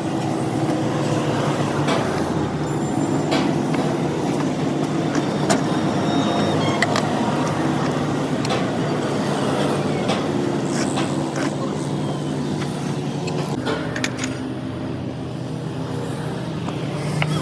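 An engine running steadily, with scattered metallic clicks and knocks over it.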